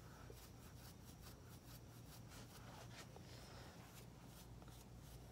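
Near silence: room tone with a faint steady low hum and a few faint light ticks.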